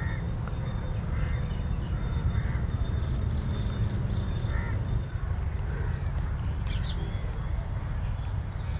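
Crows cawing now and then over a steady low rumble.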